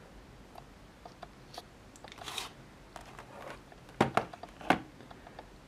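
A small cardboard model-aircraft box handled on a wooden desk: faint rustling and light ticks, then two sharp knocks about four seconds in, under a second apart, as the box is turned over and knocked against the desktop.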